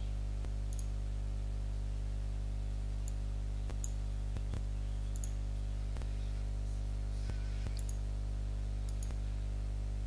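Computer mouse clicking, about eight short clicks scattered irregularly, over a steady low electrical hum.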